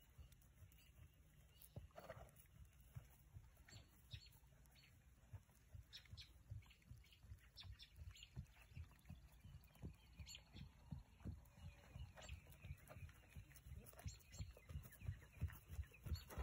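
Hoofbeats of a ridden horse moving on grass: a steady run of soft, low thuds, several a second, faint at first and louder near the end as the horse comes closer.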